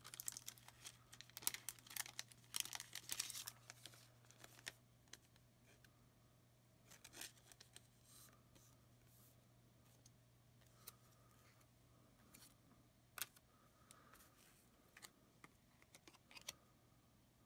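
Faint crinkling and tearing of a trading-card pack wrapper being ripped open for the first four seconds or so, then scattered light clicks and rustles of cards being handled. A steady low hum runs underneath.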